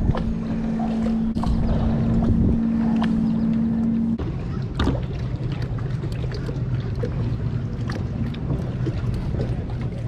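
A fishing kayak's drive running with a steady hum that drops to a lower hum about four seconds in as the boat slows alongside a wooden dock. Wind on the microphone throughout, with a few light knocks.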